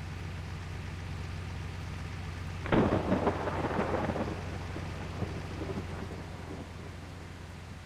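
Steady low drone of a truck's engine, with a sudden burst of rattling clatter about three seconds in that dies away over a second or so, followed by a few lighter knocks.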